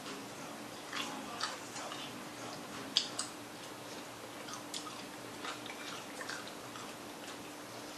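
Chewing and crunching on crispy fried chicken wings: scattered short crisp crunches and mouth sounds, the sharpest about three seconds in.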